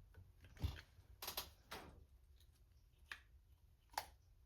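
A few light, scattered clicks and taps of small metal carburetor parts being handled, as the accelerator pump and throttle linkage is fitted and worked.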